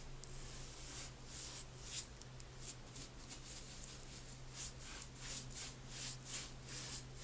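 Bristles of a flat paintbrush swishing and scratching across the wood of a chair as black paint is brushed on, in quick repeated strokes about two or three a second, closest together in the second half.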